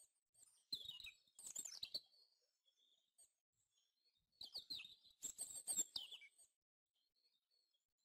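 A songbird singing two short phrases of quick, falling high notes a few seconds apart, with faint chirps from other birds in between.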